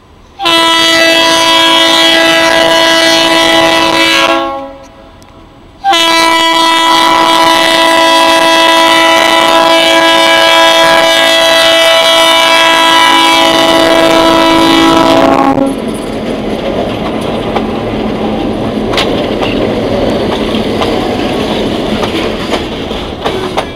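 Diesel freight locomotive's air horn blowing for a grade crossing: two long multi-tone blasts, the second much longer. Then the steady rumble and clatter of the locomotive and loaded hopper cars rolling over the crossing.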